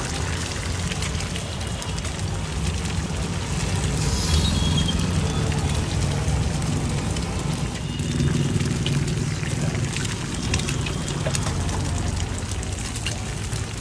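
Eggs being cracked onto a large flat iron griddle and frying, a sizzling hiss with small crackles and spits, over a steady low rumble of street traffic.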